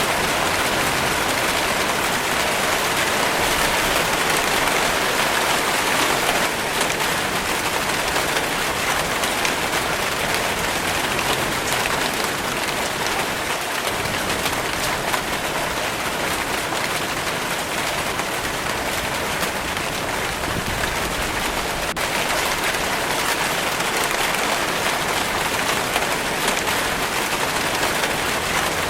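Steady rainfall: a dense, even patter of many raindrops that holds without a break.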